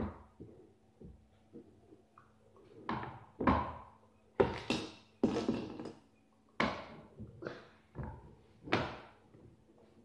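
A series of separate thunks and knocks, about a dozen at irregular intervals and heaviest in the middle: plastic children's plates being handled and knocked down onto a table.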